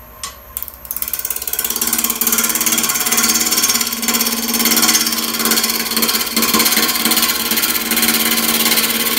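Half-inch bowl gouge cutting into a dry chokecherry blank spinning on a wood lathe at about 1200 RPM, roughing out a tenon. After a couple of light taps, the cut begins about a second in as a loud, fast-rattling cutting noise over the steady hum of the lathe.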